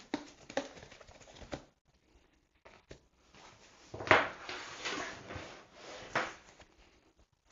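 Handling of a loaded nylon backpack with a folding foam sleeping mat strapped to its side: a few light clicks and rustles of straps and fabric, a pause, then louder rustling and shuffling starting with a knock about four seconds in as the pack is moved.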